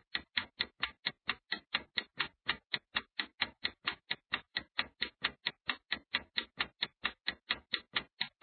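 Countdown-timer ticking sound effect: a steady, even clock tick at about four and a half ticks a second.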